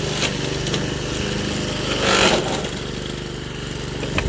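Toro Super Recycler walk-behind mower with a 5 HP Suzuki engine running steadily under load. About two seconds in, a short, loud rasping burst as the blade chews through a small pine sapling, and the engine note dips briefly.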